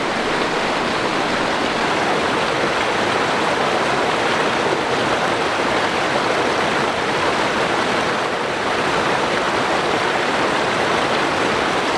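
Rushing mountain creek tumbling down a cascading section, a steady, unbroken rush of water.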